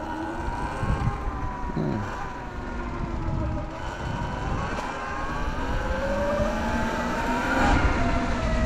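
Sur-Ron electric dirt bike's motor and belt drive whining while riding, the pitch rising and falling with speed, over rough wind rumble on the microphone.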